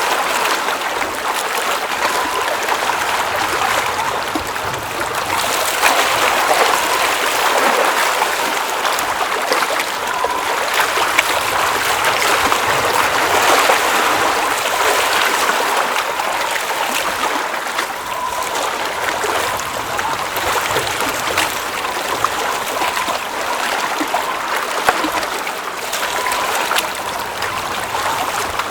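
Water flowing and trickling in a steady rush, with many small splashes and drips through it.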